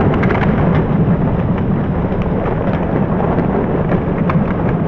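A loud, steady rumbling din with scattered short crackles and clicks.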